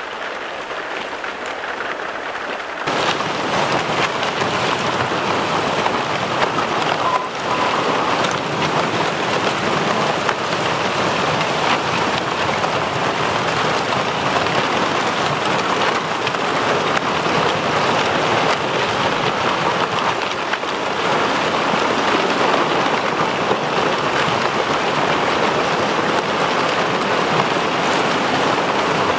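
Thin plates of fresh lake ice breaking and stacking against the shore: a loud, dense, continuous crackle of countless small cracks and clinks, growing louder about three seconds in.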